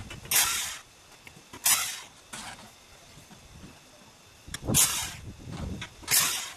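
Cordless drill run in about five short bursts against the tractor's rear wheel hub, working a fastener to take the wheel off for an axle seal replacement.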